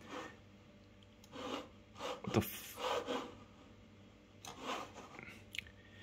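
A few short, soft rubbing and scraping sounds with a click or two, separated by quiet room tone.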